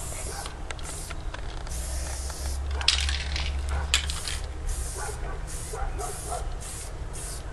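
Aerosol spray-paint can hissing in a series of short, uneven bursts as lines are sprayed, with two sharp clicks near the middle.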